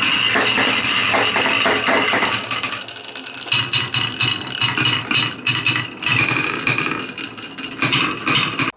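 Marbles rolling and clattering down a marble run built on cans: a dense rattle of many quick hits with a ringing tone. It cuts off abruptly near the end.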